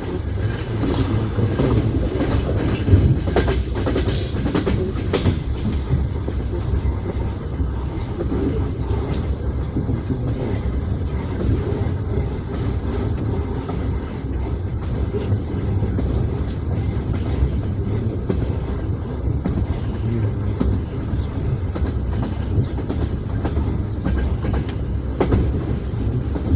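Passenger train wheels clattering over the rail joints, heard from inside an open-plan sleeper carriage: a steady low rumble with sharper clicks, a cluster of them in the first few seconds and another near the end.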